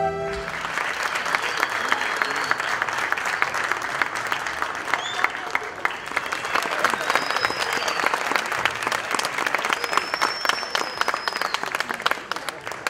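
A large theatre audience applauding in a dense, steady clatter of claps, with a few high whistles among it. The orchestra's last chord dies away just as the clapping starts, and the applause fades out near the end.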